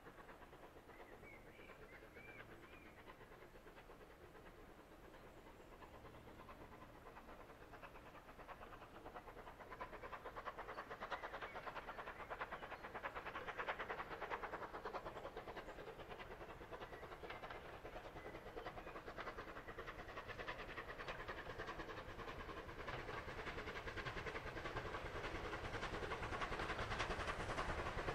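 Steam locomotive hauling a train of coaches as it approaches, its working and the clatter of wheels on the rails growing steadily louder, faint at first.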